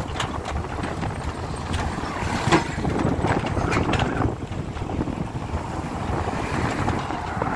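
Wind buffeting the microphone of a moving motorbike: a steady low rushing rumble with a few sharp clicks.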